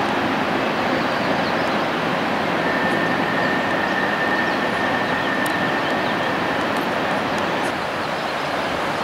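Freight train of covered hopper cars rolling across a steel trestle: a steady rumble of wheels on rail. A thin, steady high whine joins in about three seconds in and stops near eight seconds, and the noise eases a little near the end as the last cars clear the bridge.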